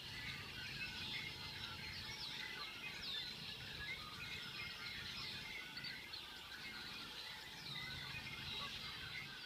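Many red-winged blackbirds calling at once, a dense, continuous tangle of overlapping chirps and short slurred calls, over a steady low background rumble.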